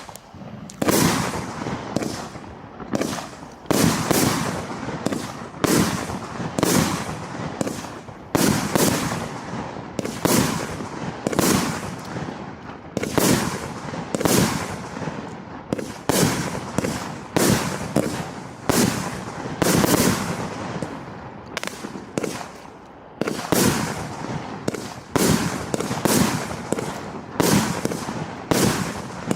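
Wolff 'Instinct' firework firing shot after shot without a break, about one to two bangs a second, each trailing off briefly.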